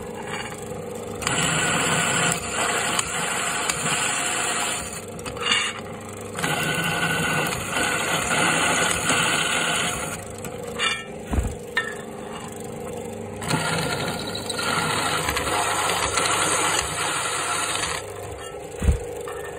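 Drill press motor running steadily while a step drill bit cuts holes in an aluminium pedal enclosure, the cutting noise rising in three stretches of a few seconds each. A couple of short low knocks come in between.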